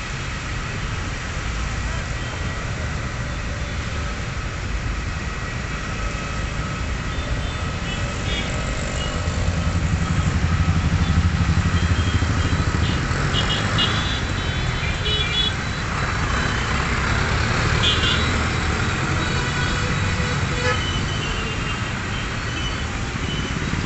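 Heavy road traffic in a jam: car, truck and motorbike engines rumbling, the low rumble swelling louder for a few seconds midway, with several short vehicle horn toots in the second half.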